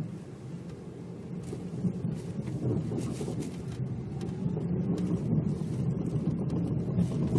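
Lada Vesta on the move, a steady low road and tyre rumble with scattered knocks from the rear suspension. The owner traced the knock to the rear shock absorber's damper part sitting too close to the body.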